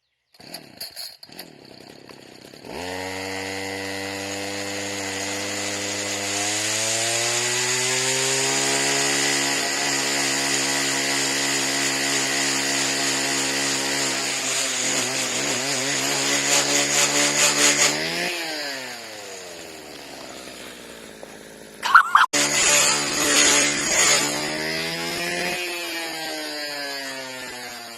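Two-stroke string trimmer engine starting and revving up, its pitch climbing slowly as it spins a heavy ATV flywheel up to speed. It holds at high revs, then winds down. About two-thirds of the way in comes a sharp crack, followed by another brief high rev that falls away.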